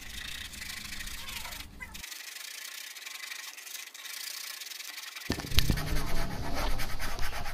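Sandpaper rubbed by hand over the plastic of a water drum around a hole, a steady scratchy scraping that gets louder in the last couple of seconds; the plastic is being roughened so the glue will bond better.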